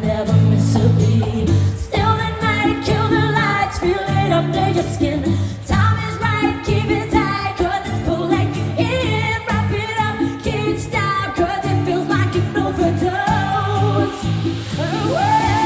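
Live dance-pop music played loud: a female lead vocal sings a melody over a synth backing and a pulsing bass line.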